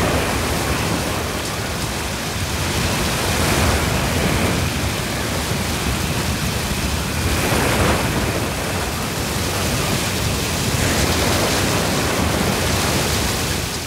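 Typhoon-force wind and driving rain: a loud, unbroken rush that swells and eases with the gusts.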